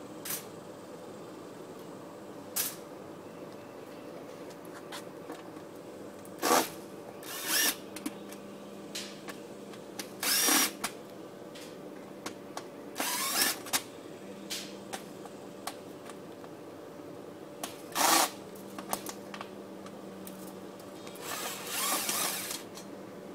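Cordless drill-driver run in about six short bursts, the last one longer, backing screws out of a stove made of stacked tin soup cans, with small metallic clicks between the runs.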